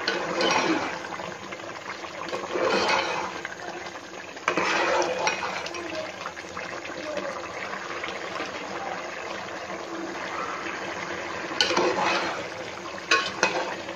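Rice and water boiling hard in a metal pot, a steady bubbling, as the water boils down. A metal spoon stirs and scrapes the pot now and then, in several short louder strokes.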